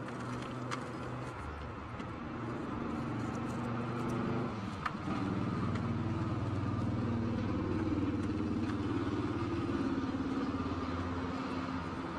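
A motor vehicle engine running steadily nearby, its hum swelling from about a few seconds in and staying louder, with a few faint crunchy clicks of gym chalk being crumbled by hand.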